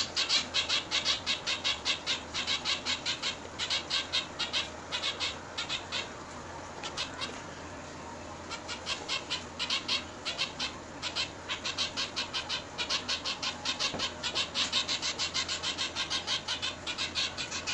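Zebra finch fledgling giving rapid, repeated high begging calls, several a second, going quiet for about two seconds midway: a hungry young bird begging to be fed.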